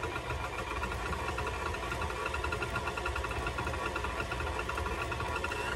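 KitchenAid tilt-head stand mixer running steadily at a constant pitch, its beater churning cake batter in the stainless steel bowl.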